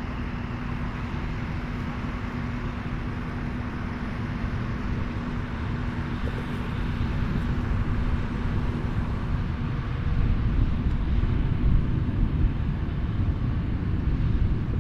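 Case IH AF10 combine harvester running while harvesting corn, its engine and machinery making a steady low rumble that grows louder about halfway through.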